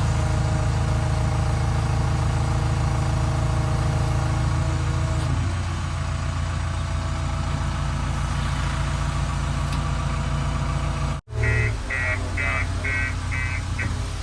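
Diesel engine of a JCB 3DX backhoe loader running steadily, easing down slightly about five seconds in. Near the end comes a run of about six short high beeps.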